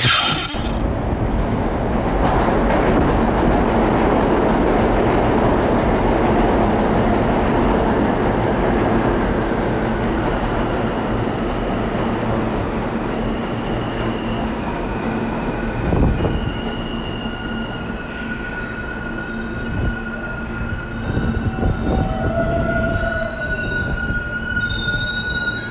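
New York City subway train running fast, a loud dense rumble and rattle of steel wheels on rail that starts abruptly. Over the second half it eases off, and high, steady squealing tones come and go, typical of subway wheels and brakes.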